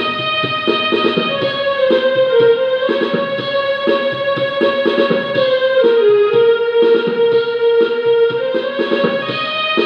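Portable electronic keyboard being played: a held, organ-like melody line over steady rhythmic chords, the melody stepping down in pitch a few times.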